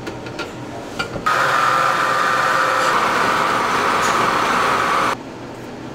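Electric food processor's motor running with a loud, steady whine, switched on about a second in and cutting off sharply near the end, after a few light clicks.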